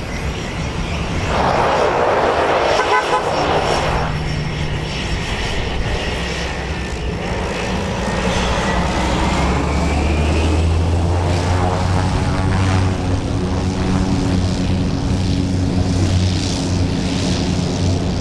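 Cessna Grand Caravan's single turboprop engine running as the aircraft taxis past: a steady propeller drone with a turbine whine. The whine glides upward midway through, and the low drone grows stronger from about ten seconds in.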